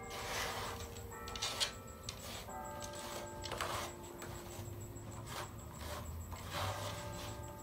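A cloth shirt rubbed over wet skateboard griptape, the rubbing strokes coming every second or two. Background music of held notes plays throughout.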